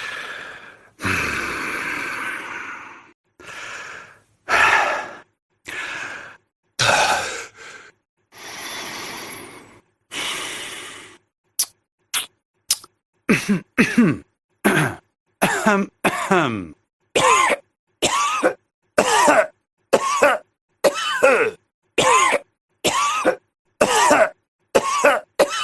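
A sequence of non-speech vocal sound effects from the Loquendo text-to-speech voice-gesture set. For the first ten seconds there are separate breathy, cough-like sounds with short pauses between them. After a few brief clicks comes a quick run of short voiced sounds, each falling in pitch, about one and a half a second.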